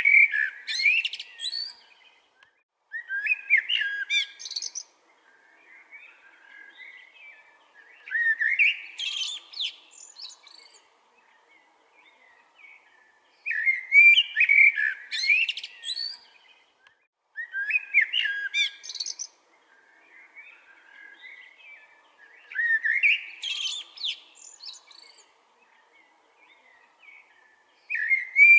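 A songbird singing in loud phrases about two seconds long, repeated every four to five seconds, with softer twittering between them.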